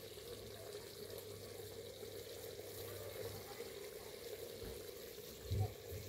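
Tomato and onion stew simmering in a clay pot over a wood fire, a faint steady bubbling.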